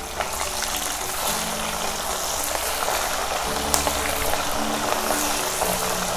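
Hot oil sizzling and crackling steadily in a wok as river fish fry in it, with background music playing underneath.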